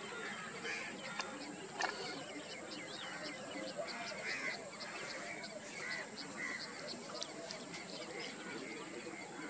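Lakeside ambience of many birds chirping and calling in short, scattered notes over a steady high-pitched hum.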